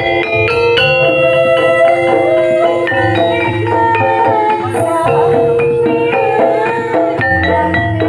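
East Javanese gamelan music accompanying a Bantengan dance: metal mallet instruments ring out a busy melody of struck notes over low drum beats, with a wavering higher melodic line joining about three seconds in.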